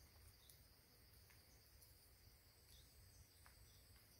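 Faint, steady high-pitched insect chorus, with a few soft clicks over a low rumble.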